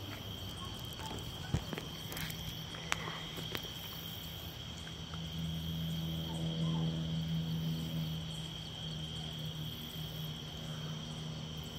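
Steady chorus of night insects, an even high trill throughout, with a low hum that swells and fades in the middle and a few faint clicks.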